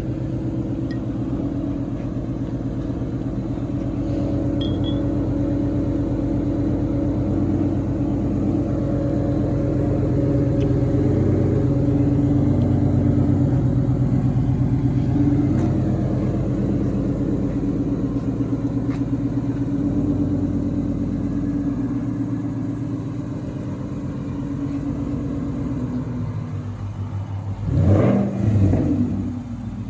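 2017 Mustang GT's 5.0-litre V8 running steadily, with a few quick revs near the end.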